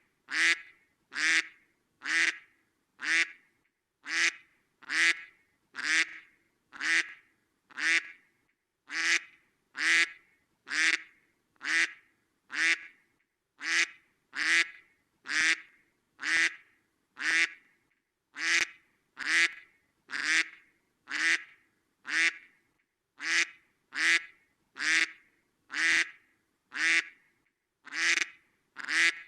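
Duck quacking over and over, one short quack about every second at a steady, even pace.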